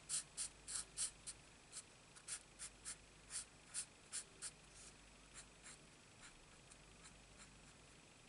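Felt-tip marker nib scratching on cardstock in short, quick strokes, about three a second, as creases are shaded in; the strokes grow faint about five seconds in.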